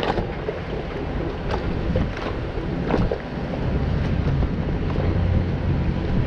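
Gusty wind buffeting the microphone, a low rumbling noise, with a few short sharp knocks or splashes scattered through it.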